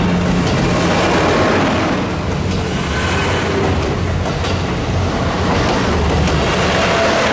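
KiHa 72 Yufuin no Mori diesel multiple unit running past at close range: a steady diesel engine drone under loud rolling rail noise, with a few wheel clacks over the rail joints.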